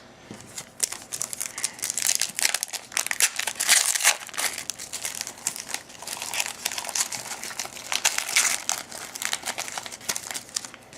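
Trading card pack wrapper crinkling and crackling in the hands as a pack is opened and handled, with irregular crisp rustles throughout.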